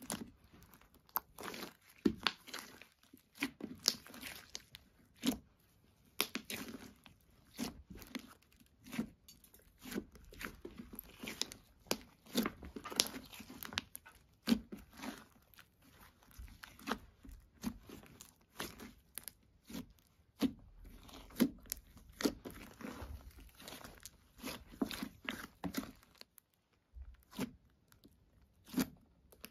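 Hands squeezing, folding and pressing a large ball of thick, glossy slime mixed with makeup and glitter, giving a stream of short, irregular crackles and pops as trapped air bursts.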